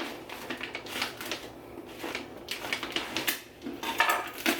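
A knife cutting and scraping through packing tape on a cardboard shipping box, with the cardboard being handled: a run of irregular clicks and scrapes, loudest about four seconds in.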